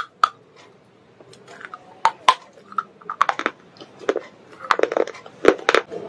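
Close-up crunching of baked clay pipe pieces: sharp bites followed by a string of brittle crunches as they are chewed, with a quieter pause in the first couple of seconds.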